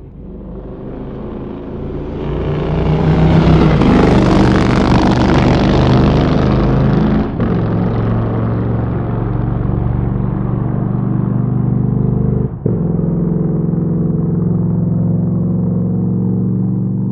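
Motorcycle engine running, growing louder to a peak about four seconds in, then holding a steady note, with two very brief drops in level partway through.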